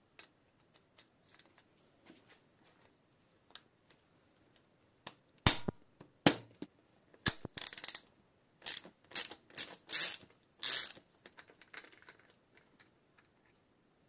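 Socket ratchet wrench clicking through a run of short strokes as it unscrews the bottom nut of a Fox suspension fork's lower leg. Light clicks of the nut and socket being handled come first, and the ratcheting is loudest from about halfway through.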